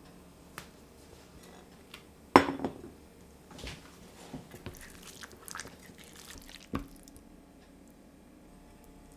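A dish set down on a wooden tabletop with one loud knock about two seconds in. A serving utensil then scrapes and clinks in a stainless steel pan as cheesy baked pasta is scooped out, with a sharper clink near the end.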